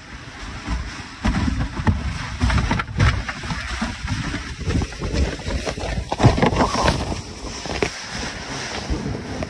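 A plastic kayak hull sliding and scraping down a hill over snow and dry grass, with repeated sudden knocks as it rides over bumps, and wind buffeting the microphone.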